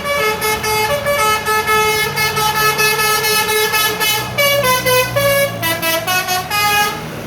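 Indonesian bus 'telolet' combination air horn playing a quick tune of changing notes, with the bus engine rumbling underneath; the horn stops about seven seconds in.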